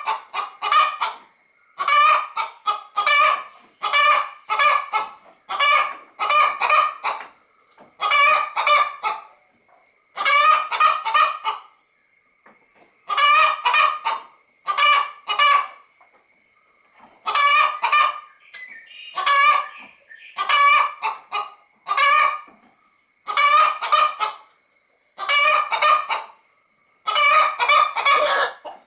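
Hen calling in quick clusters of short, pitched clucks that repeat about every second or so in a looped, rhythmic pattern, with a faint steady high tone underneath.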